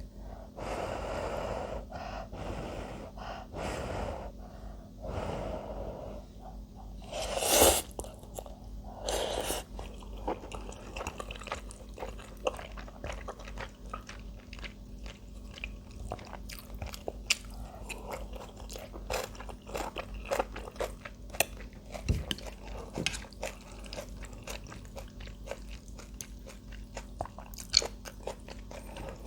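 Close-miked mukbang eating of spicy ramen with shrimp and beef brisket: a few longer noisy sounds in the first ten seconds, then steady chewing with many small wet clicks and crunches.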